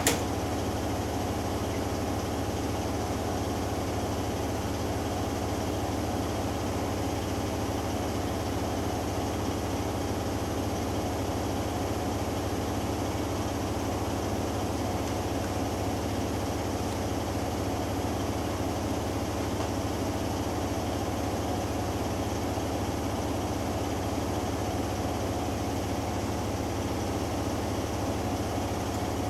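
Hoover Dynamic Next washing machine in its final spin: the drum spins steadily at high speed with a constant motor hum and whine. There is one sharp click right at the start.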